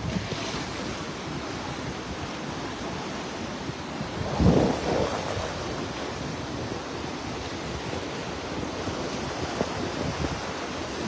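Surf of the Bay of Bengal breaking and washing in among rocks at the shoreline: a steady rush of waves with wind buffeting the microphone. One louder rush comes about four and a half seconds in.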